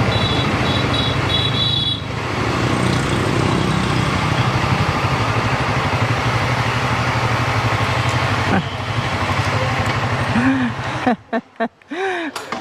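Honda CRF Rally motorcycle's single-cylinder engine running steadily at low speed as the bike pulls in and idles, then cut off abruptly about eleven seconds in. A short run of high beeps sounds during the first two seconds.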